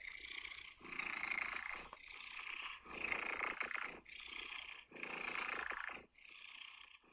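Cat purring, in long alternating breaths of about a second each, one stronger and the next weaker, stopping near the end.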